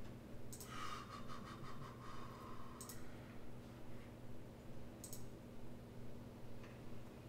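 A few sharp computer mouse clicks over a steady low electrical hum, with a rasping rattle of about two seconds starting about a second in.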